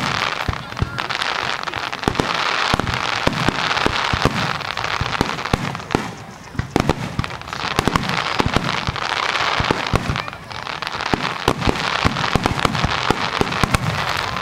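Fireworks finale barrage: aerial shells bursting in rapid, overlapping bangs over a continuous hiss. The bangs thin out briefly about six and ten seconds in.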